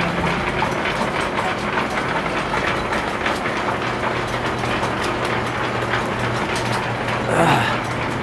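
Belt-driven overhead line shaft and its pulleys running, driving an antique post drill press: a steady, dense clattering rattle over a low hum, with a brief falling-pitched sound near the end.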